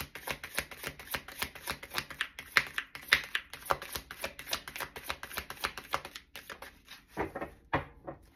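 A deck of tarot cards being shuffled by hand: a fast run of card clicks for about six seconds, then two separate louder slaps of cards near the end.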